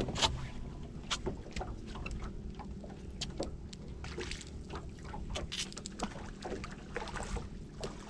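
A hooked speckled trout splashing at the surface beside a small boat as it is reeled in, with many short sharp clicks and knocks over a low steady background.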